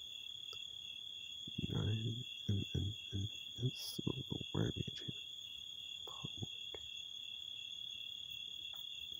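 A steady high-pitched trill runs in the background throughout. Over it, a man's voice comes in short, indistinct bursts from about a second and a half in to about five seconds in.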